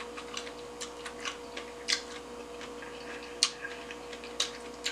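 Close-range eating sounds of someone chewing sushi rolls: irregular wet clicks and smacks of the mouth, a few of them sharper, over a faint steady hum.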